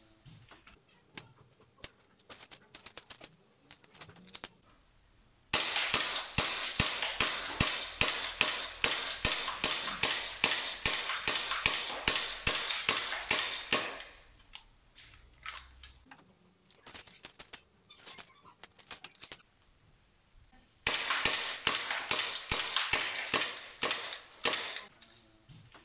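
Vorsk Glock gas blowback airsoft pistol firing, each shot a sharp crack with the slide cycling. It fires two long, rapid strings of shots, with sparser shots and clicks in the gaps between them.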